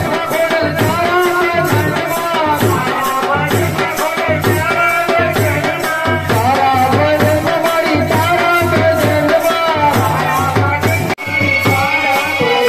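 Amplified devotional song: a voice sung through a microphone over a steady beat, with hand rattles shaken in time. The sound drops out briefly near the end, then the music carries on with a different texture.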